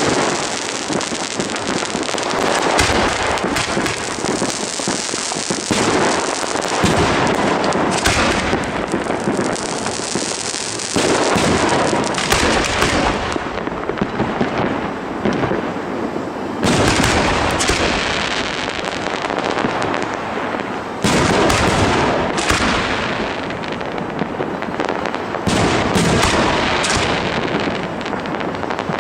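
Fireworks finale: a dense, continuous barrage of bangs and crackling from many shells bursting close together, with no gaps.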